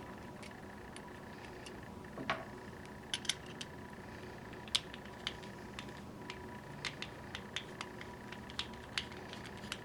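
Screwdriver backing out the small securing screws of a Rhino Vending gumball machine coin mechanism's back plate: irregular small metallic clicks and taps, one with a short ring about two seconds in.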